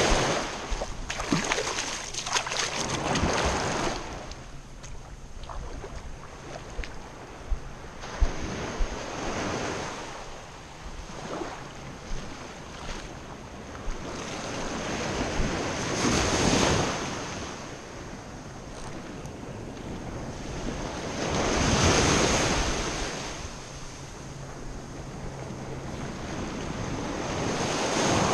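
Small surf breaking and washing up on a shallow beach, swelling and fading every few seconds. A few sharp clicks sound in the first several seconds.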